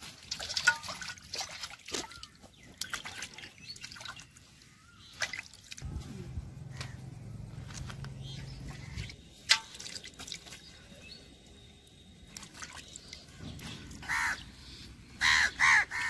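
Water sloshing, splashing and dripping as pieces of raw quail meat are rinsed by hand in a metal bowl. A low hum runs for a few seconds in the middle, and a few short, loud animal calls come near the end.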